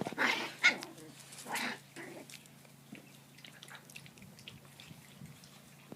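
Six-week-old puppy crying a few short times in the first two seconds, whining to be picked up, then only faint small sounds.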